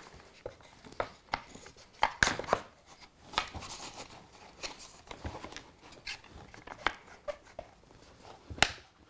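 Plastic hand clamps and curved plywood track-bed segments being handled and adjusted: scattered light clicks and knocks, with sharper knocks about two seconds in and again near the end.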